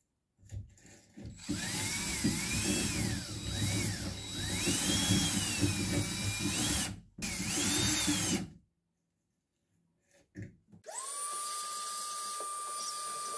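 Cordless drill spinning an L-shaped scraping tool inside a drilled hole to hollow out the foam core around it, its speed rising and falling in two runs. About 11 seconds in, a vacuum starts and runs steadily with a constant whine, sucking out the loosened foam.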